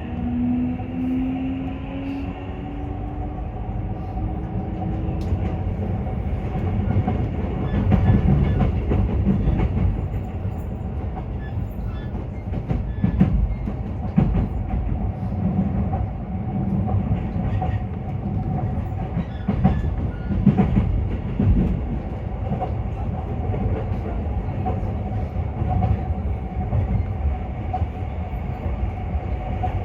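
Inside a JR E233 series 3000 commuter train pulling away. The traction motors' whine rises in pitch over the first few seconds as it picks up speed, then gives way to a steady running rumble with wheels clacking over rail joints.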